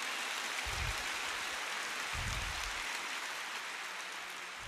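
Audience applauding, a steady even clatter of many hands, with a couple of dull low thumps underneath.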